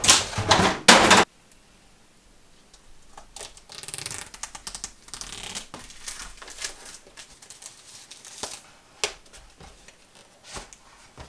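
Rigid clear plastic blister packaging being handled, crackling loudly for about a second. Then quieter rustling, scraping and small clicks as a cardboard calculator box is handled and its sleeve slid open by hand, with one sharper click near the end.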